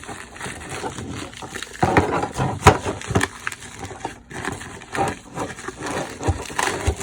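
Hands opening product packaging: irregular crinkling and rustling with sharp snaps and clicks.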